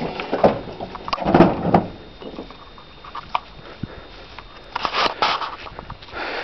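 Irregular knocks and rustling from a handheld camera being carried and moved about, louder in short bursts about a second in and again about five seconds in.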